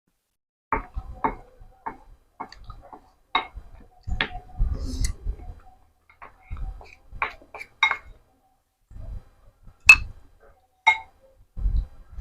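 Close-up eating sounds: irregular sharp clicks and clinks of utensils against a bowl, with low dull sounds of chewing in between.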